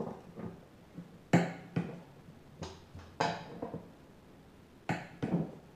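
Sharp metallic clicks and clinks of a socket and click-type torque wrench on the bolts of a new mower-deck spindle being torqued down, about six in all, in pairs, the loudest about a second in.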